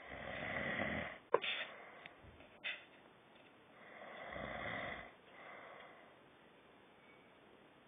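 A person snoring: slow, noisy breaths, two loud ones about four seconds apart, each followed by a softer one. A couple of short clicks fall between the first two breaths.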